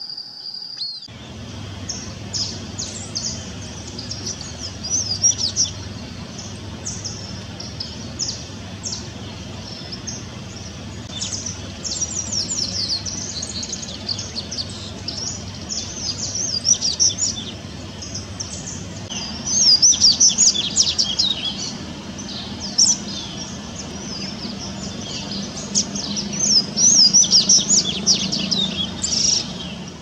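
Double-collared seedeater (coleirinho) singing: repeated bursts of quick, varied high twittering notes, loudest in the second half.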